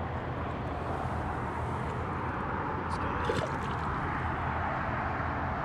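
Steady road traffic noise from a highway, with one vehicle passing about two to four seconds in. A brief light splash in shallow water about three seconds in as the fish is let go.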